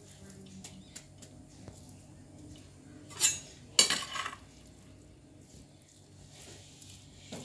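Hands rubbing and tossing steamed vermicelli in a glazed earthenware dish to work icing sugar through it, with faint rustling and light clicks. About three and four seconds in come two louder clatters against the dish.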